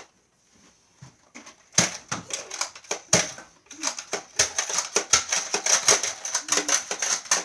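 Nerf dart blasters in a running fight, a rapid, irregular clatter of clicks and knocks of firing and darts striking, starting about two seconds in.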